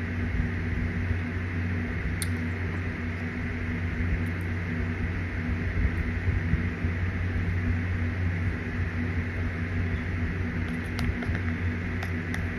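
Steady low machine hum with a faint hiss, like a fan running, with a few faint light clicks about two seconds in and again near the end.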